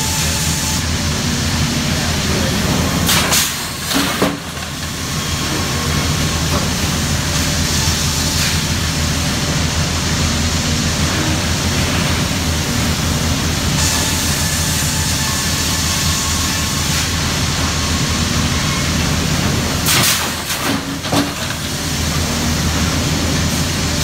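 Sawmill machinery running steadily: a deep motor hum under a continuous hiss. A few sharp knocks come about three to four seconds in and again near the end.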